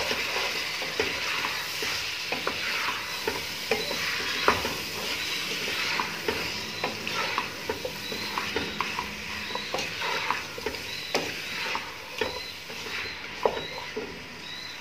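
Chicken pieces, potatoes, tomatoes and onions frying in hot ghee in a large pot: a steady sizzle, with irregular knocks and scrapes of a wooden spatula stirring against the pot.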